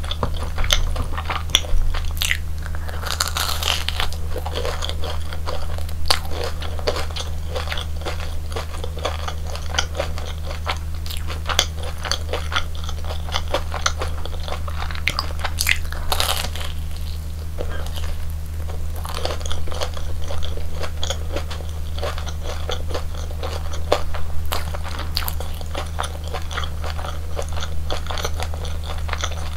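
Close-miked crunchy bites and chewing of deep-fried Korean hot dogs, the crisp batter crackling in dense, irregular crunches throughout, with a steady low hum underneath.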